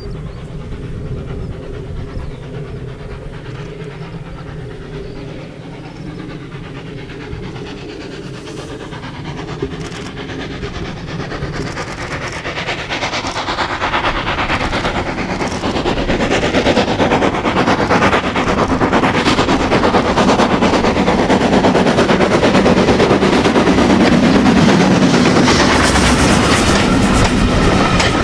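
Steam tank locomotive approaching with its exhaust beats growing steadily louder as it nears, then passing close by with its train of coaches, wheels clicking over the rail joints near the end.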